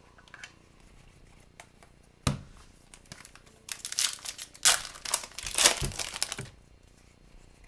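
A hockey card pack's wrapper being torn open and crinkled, with a sharp knock just over two seconds in and a run of crinkling that stops a second before the end.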